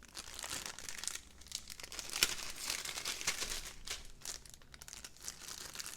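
Plastic packaging crinkling and rustling as small bagged accessories are handled, with a sharper crackle about two seconds in.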